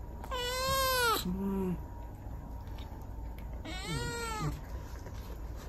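Domestic cat meowing twice, two long drawn-out calls that each rise and then fall in pitch, about three seconds apart, with a short lower call just after the first.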